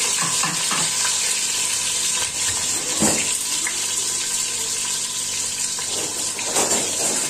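Sliced onions sizzling in hot oil in an aluminium pressure cooker, a steady frying hiss. A few soft knocks come near the start and about three seconds in.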